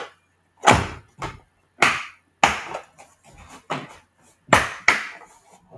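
The hard plastic carry case of a Stanley 201-piece mechanics tool set being handled and turned over: a series of sharp clunks and clacks, about eight in all, unevenly spaced.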